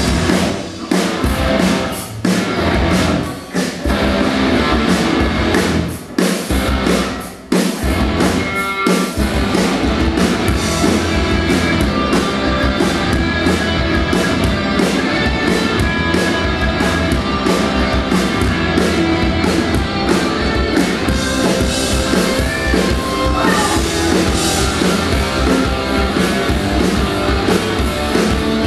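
Instrumental rock intro with drums and electric guitar: stop-start hits with brief breaks in the first several seconds, then a continuous full-band groove.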